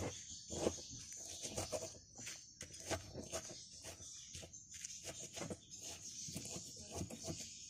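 Stone pestle crushing and grinding chillies and salt in a stone mortar: irregular knocks and scrapes of stone on stone, two or three a second.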